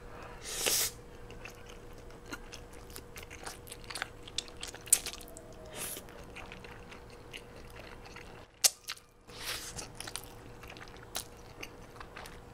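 Close-miked slurping and chewing of saucy noodles, with loud slurps about half a second in and again near the ten-second mark, and a few sharp clicks between them.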